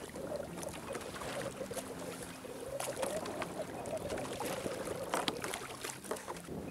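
Choppy sea water slapping and splashing against a fishing kayak's hull, with wind on the microphone. A few sharp clicks come through around the middle and later part.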